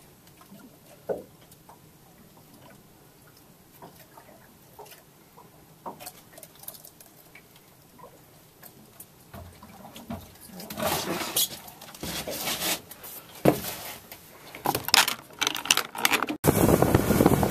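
Scattered small clicks, knocks and scratchy rustles of hands handling a fish and gear in a small boat, growing busier later on. About a second before the end it cuts abruptly to a loud rush of wind on the microphone as the boat runs over the water.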